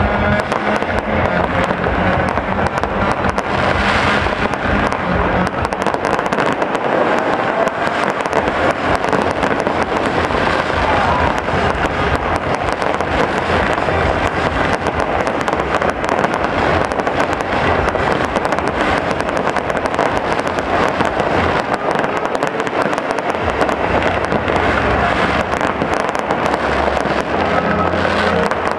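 Aerial fireworks display: dense, unbroken crackling and popping of bursting shells and crackle stars.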